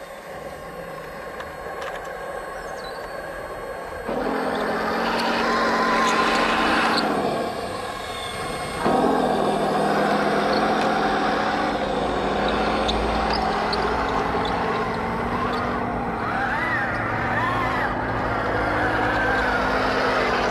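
Heng Long RC StuG III tank driving, a steady engine-like drone that shifts in pitch as it speeds up and slows. It gets louder about four seconds in, dips briefly, and picks up again about nine seconds in, with rising and falling whines near the end.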